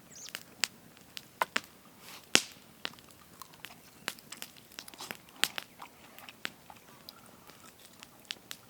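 Someone biting into and chewing a sauced chicken wing close to the microphone: irregular crunches and wet clicks, the loudest about two and a half seconds in.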